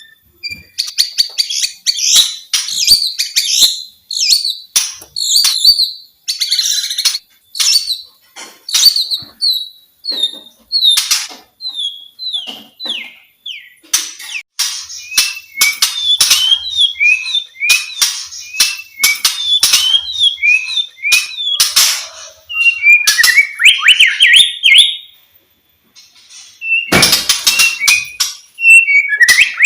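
White-rumped shama singing a fast, varied song of whistled, sliding phrases mixed with sharp clicking notes, with a short pause and then a loud harsh burst near the end.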